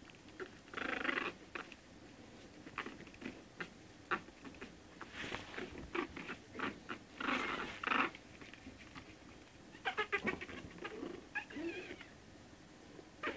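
One-month-old Shih Tzu puppies playing: scattered short yips, squeaks and whines with small clicks and scuffles, and a quick run of squeaks about ten seconds in.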